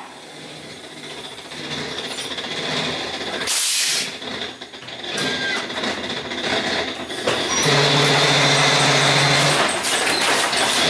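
Ghost train dark ride's car running along its track amid mechanical scare effects: a short loud hiss about a third of the way in, then a loud steady low buzz near the end.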